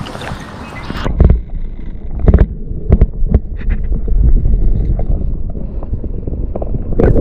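Water splashing as a hand-held camera is plunged into the river, then the muffled, low rumble of the camera held underwater, with several sharp knocks and bumps against its housing.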